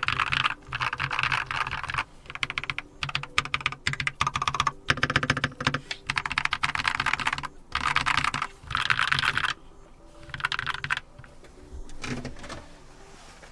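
Typing on a Keychron K2 mechanical keyboard with brown tactile switches, resting directly on a hollow wooden desk: quick runs of key clacks with short pauses between them. Near the end the typing thins to a few quieter taps.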